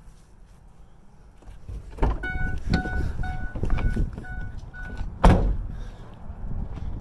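Van door opened, the door-open warning chime beeping about twice a second, then the door slammed shut with a loud thud about five seconds in, the chime stopping just before it.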